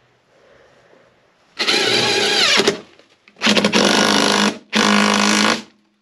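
A DeWalt cordless impact driver runs in three loud bursts, tightening a nut onto threaded bar to bolt an oak sole beam to the boat's frame. The first burst winds down in pitch as it stops.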